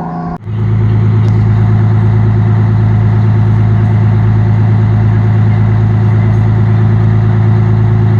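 The tail of a siren cuts off abruptly about half a second in. A vehicle engine then runs steadily with a strong, even low hum.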